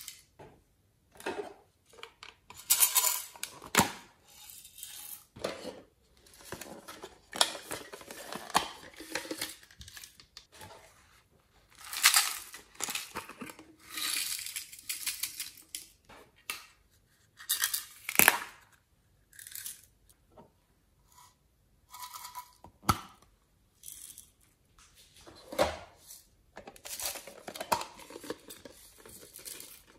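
Plastic bottles of glitter shaken and tapped, sprinkling glitter and sequins into a glass dish of slime, in repeated short rattling bursts with gaps between. Sharp clicks of plastic lids and cases being opened and handled.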